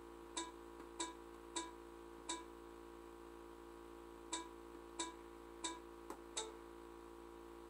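Amia peritoneal dialysis cycler's touchscreen keypad beeping once for each key pressed, about eight short beeps as a blood pressure reading is entered: four in quick succession, a pause, then four more. A steady low hum runs underneath.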